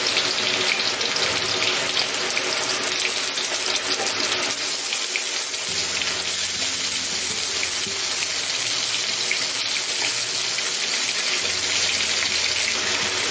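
Chicken drumettes sizzling in hot oil in a wok with shredded ginger: a steady frying hiss with fine crackle, as the pieces are dropped in and stirred.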